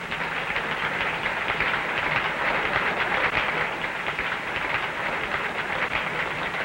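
Cricket crowd applauding steadily, a dense even patter of many hands, for a batsman's century.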